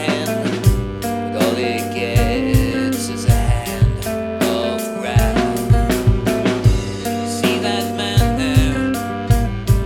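Recorded rock song: a drum kit keeps a steady kick-drum beat under held bass notes and guitars, with a voice singing at times.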